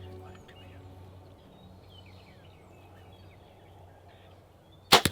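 Background music fading out, then faint chirping bird calls, and near the end a sudden loud burst of several sharp knocks.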